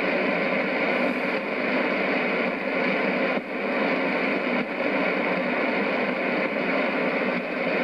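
A shortwave receiver in AM mode on 6070 kHz gives out a steady hiss and static, with faint steady tones in the noise. The level dips briefly twice, about a third and halfway through.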